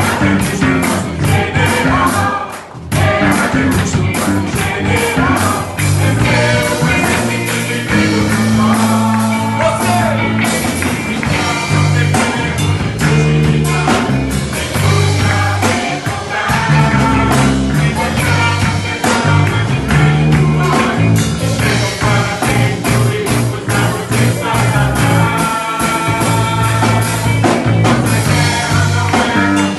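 A band playing a song with singing: a steady drum beat under held bass notes and a sung melody.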